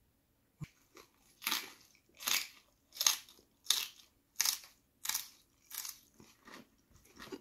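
A person chewing a mouthful of raw napa cabbage wrapped around boiled pork, the crisp leaf crunching with each chew, about one and a half chews a second. The crunches grow fainter near the end.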